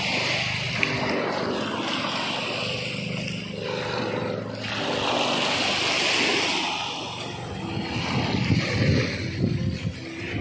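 A motor drones steadily over the hiss of the sea, fading out about halfway through. In the last couple of seconds wind buffets the microphone.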